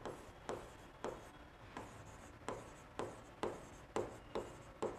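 Faint writing on a board: short taps and scratches of the writing tip, about two strokes a second.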